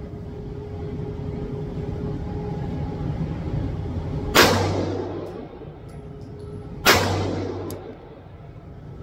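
Two 9mm pistol shots from a Glock 19, about two and a half seconds apart, each ringing on in the echo of an indoor range booth.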